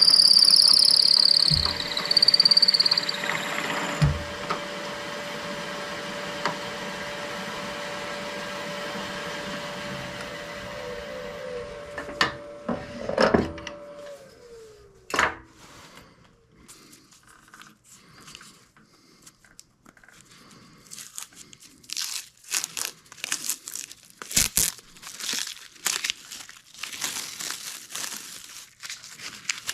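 Wood lathe spinning a small wine-stopper blank, with a high gliding squeal of the turning tool on the wood in the first few seconds over the motor's steady hum. About 14 seconds in the lathe is switched off and its hum falls in pitch as it spins down, followed by scattered scratchy crackling and rustling of hand work on the piece.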